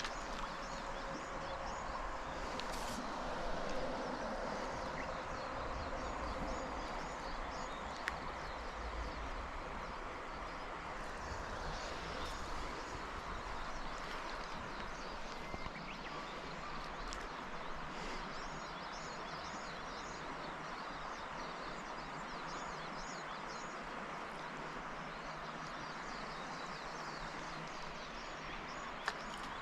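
Steady rush of flowing river water, with small high chirps repeating throughout and a couple of brief clicks.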